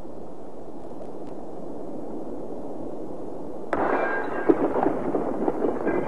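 Mantis shrimp's club strike, as heard on a documentary soundtrack: a steady low rumble, then about two-thirds of the way through a sudden explosion-like burst of cracks and pops, with the sharpest crack a little after that.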